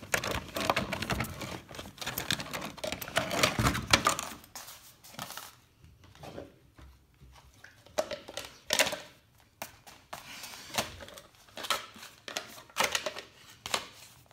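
A large dog rummaging with its nose in a cardboard box of dried chews, rustling and crinkling the packaging, then gnawing a dried animal-ear chew with irregular sharp crunches and cracks.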